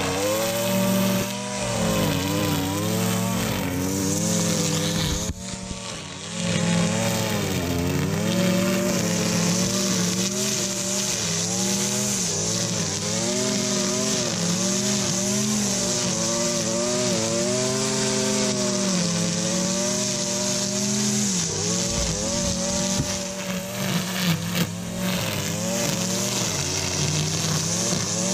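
Gas-powered two-stroke string trimmer running at high throttle while cutting tall grass and weeds. Its engine pitch sags and recovers over and over as the line meets thick growth. About five seconds in it briefly drops to a lower speed, then revs back up.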